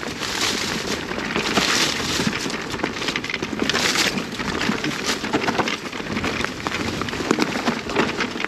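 Marin Alpine Trail E2 electric mountain bike being ridden along a dirt forest trail: the tyres rush and crackle over the ground and leaf litter, with frequent small clatters and knocks from the bike. The rushing noise surges louder several times.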